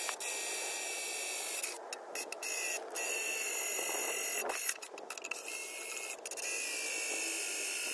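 Cordless electric drill boring holes into stainless steel plate: a high motor whine that starts and stops several times, its pitch sagging slightly under load. Ordinary drill bits are struggling in the stainless steel.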